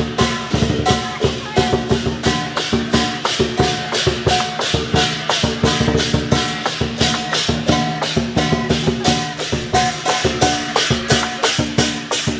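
Lion dance percussion: drum, clashing cymbals and gong playing a fast, steady beat of about four strokes a second.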